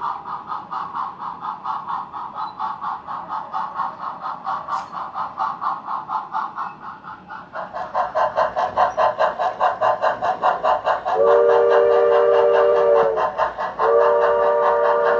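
O scale model steam locomotive's sound system playing steady, rhythmic exhaust chuffs, which get louder about halfway through. A chime steam whistle then blows twice, the second blast still going at the end.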